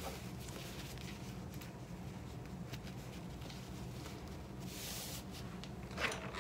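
An iron pressing a fabric lining piece flat along a sewn-on zipper: soft rustling and sliding of fabric over a steady low hum, a brief hiss about five seconds in, and a louder handling sound near the end.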